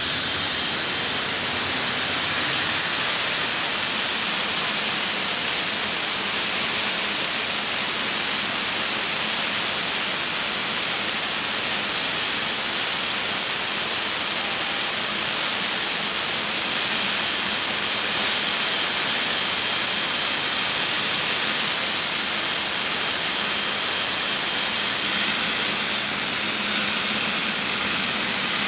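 Jet car's turbine engine spooling up: its whine climbs steeply over the first few seconds, then holds steady and high-pitched over a loud rushing hiss.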